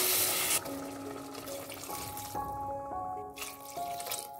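Water poured from a tumbler into a pan of sautéed vegetables and bisi bele bath masala, stopping about half a second in. Soft background music with held notes follows.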